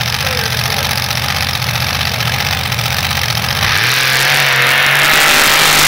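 Sand rail's engine idling loudly, then revving up sharply about two-thirds of the way in as it launches into the mud pit at full throttle, with a rushing noise as the rear tires throw dirt.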